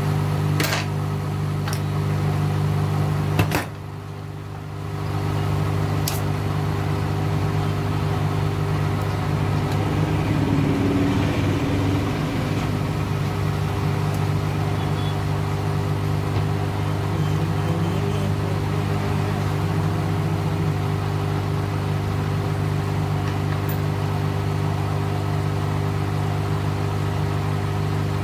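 Steady low electrical hum, a buzzing drone that eases off for about a second and a half around four seconds in. A few sharp clicks come in the first six seconds.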